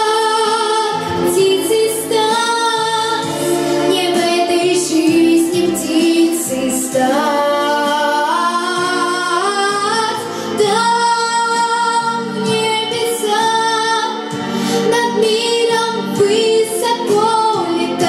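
A young girl singing a song into a microphone over an instrumental backing, holding long notes and stepping up and down the melody.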